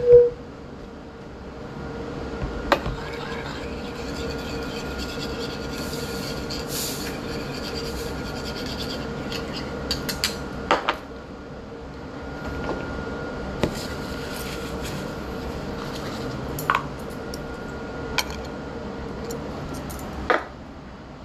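Metal chopsticks clicking against porcelain dishes at a meal, a handful of sharp separate clicks a few seconds apart, over a steady background hum.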